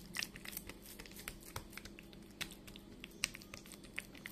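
Fingers pressing and pinching crumbly semolina harcha dough into a heavy frying pan: a run of small, irregular taps and clicks.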